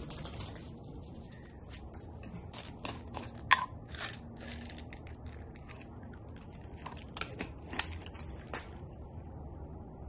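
Small dog crunching a treat, with irregular crunches and clicks and one sharp click about three and a half seconds in.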